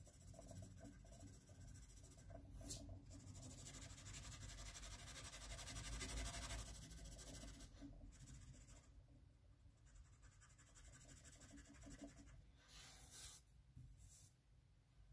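Pencil lead scratching faintly across paper as a thick line is drawn and shaded: one longer stretch of steady scribbling a few seconds in, and short strokes before and near the end.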